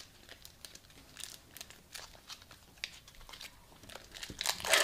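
Plastic wrapper of a meat stick crinkling and tearing as it is peeled open: a run of light crackles, with a louder rustle near the end.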